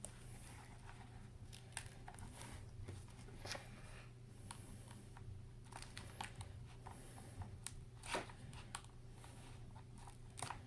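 Small scattered clicks and short scrapes of hand tools prying at the adhesive under an iPad Air 2's screen, over a faint steady hum.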